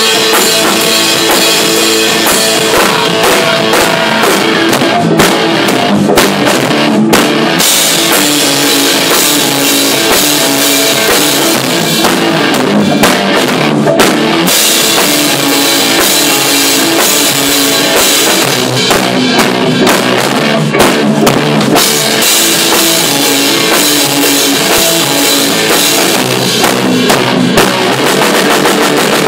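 Rock band playing loudly: drum kit and electric guitars together. The cymbals briefly drop out a few times.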